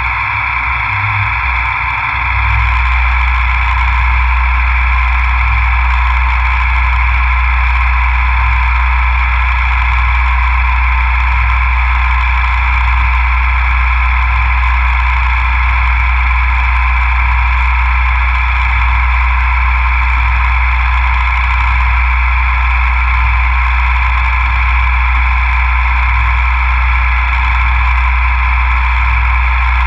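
CNC milling machine running steadily during the machining of a fixture plate, with a constant low hum and a steady mid-pitched whine. It gets slightly louder and steadier about two seconds in.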